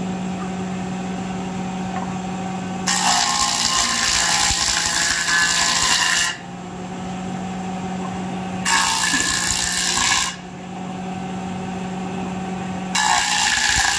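Belt-driven surface planer (jointer) running with a steady hum, as a wooden plank is fed over its cutter head three times. Each pass is a loud cutting noise: the first, about three seconds in, lasts about three seconds; the second is shorter; the third comes near the end.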